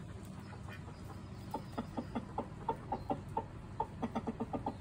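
Rooster giving a string of short clucks. They begin about a second and a half in, come four or five a second, and speed up near the end.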